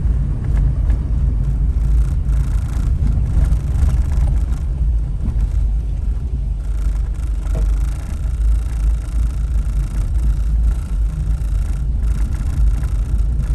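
Car driving along, a steady low rumble of engine and road noise heard from inside the cabin.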